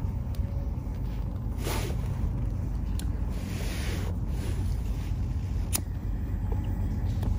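Steady low wind rumble on the microphone, with two sharp clicks about three and six seconds in from a disposable lighter being struck.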